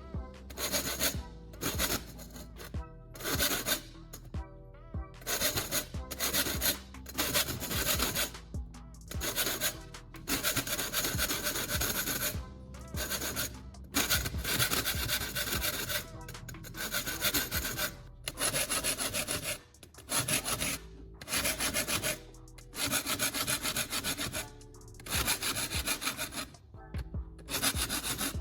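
A metal file rasping across the teeth of a folding saw blade in repeated strokes with short pauses, sharpening the teeth from the second side against a wooden guide.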